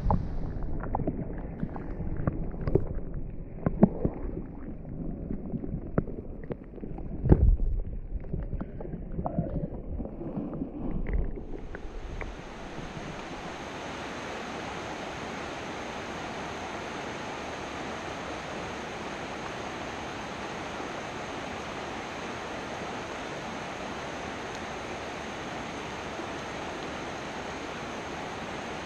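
Muffled sloshing and knocks of water, dull with no highs, as a trout is let back into the stream. After about twelve seconds this gives way to the steady rush of flowing stream water.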